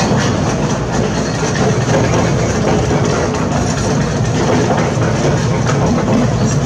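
Heavy construction machinery running, a steady diesel engine drone with many small clanks and rattles throughout.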